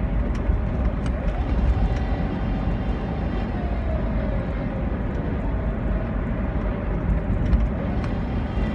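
Car driving with a steady low rumble and a faint whine over it that slides down in pitch a few seconds in: the abnormal noise from the manual transmission.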